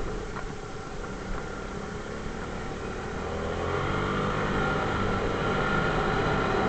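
ATV engine running steadily, getting louder about three and a half seconds in as it takes on more revs.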